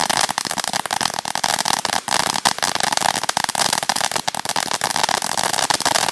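Brothers Fireworks 'Totally Circus' ground fountain in its crackle phase: a dense, rapid crackle of many small pops over a bright hiss.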